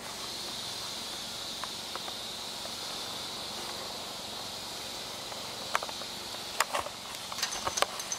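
A steady high-pitched hiss, then a cluster of sharp clicks and knocks in the last two seconds, the sound of a handheld camera being handled.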